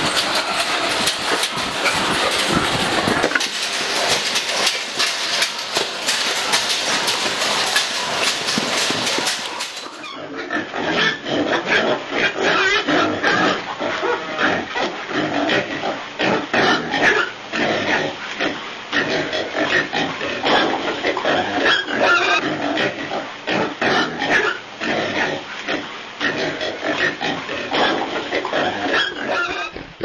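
Many pigs squealing and grunting together at feeding time, a dense, continuous din. About ten seconds in the sound changes abruptly to a busier mix of separate grunts and squeals.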